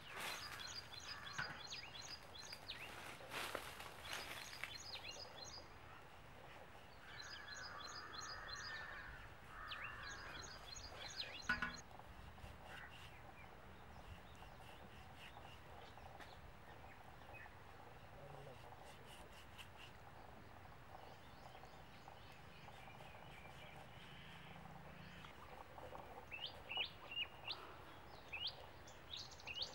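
Small birds chirping in quick trains of short high notes, coming in several bursts, with quick rising chirps near the end, over faint outdoor background noise. A few sharp clicks, the loudest about eleven seconds in.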